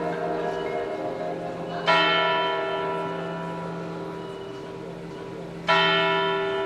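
A large tower bell struck twice, about four seconds apart, each stroke ringing on and slowly dying away.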